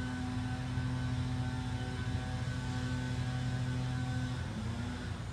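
Lawnmower engine running steadily as a continuous hum, its pitch sagging briefly near the end before picking back up.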